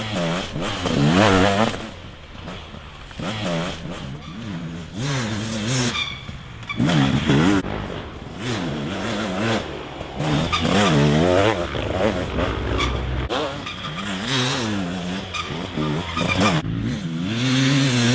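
A vehicle engine revving up and down over and over, its pitch rising and falling.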